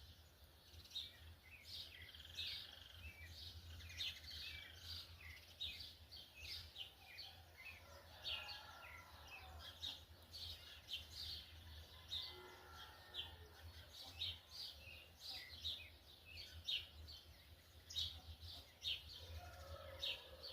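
Brown-plumaged young yellow-bellied seedeater (coleiro baiano) singing a long, rapid run of short high chirping notes: the twittering 'churrio' song. A steady low hum lies underneath.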